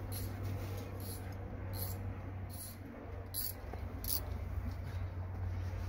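Faint, irregular scratching and handling sounds of a socket wrench being worked onto a seat belt mounting bolt, about half a dozen short scrapes, over a steady low hum.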